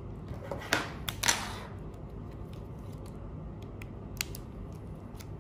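Hands handling a small clip-on body camera: a few short brushing scrapes about a second in, then scattered light clicks as fingers work at its side.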